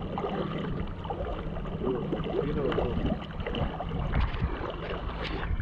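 Shallow seawater sloshing and splashing around legs as people wade through it, with small irregular splashes over a steady low rumble of wind on the microphone.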